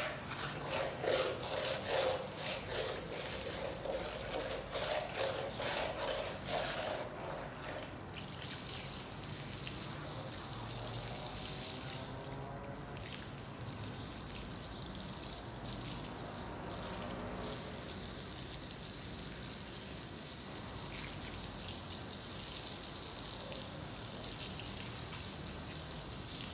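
Hands rubbing a soaked, soapy rug with quick repeated wet swishes. From about a third of the way in, a steady hiss of water from a garden hose splashes over the rug and runs off across the tiles.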